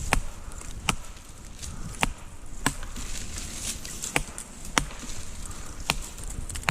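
A series of sharp knocks, about one a second and slightly irregular, over a low wind rumble.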